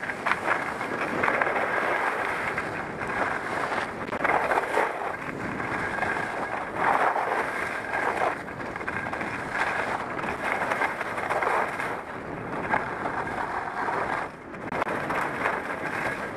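Skis scraping and carving over packed snow, the hiss swelling with each turn every second or two, mixed with wind rushing over a helmet-mounted camera's microphone.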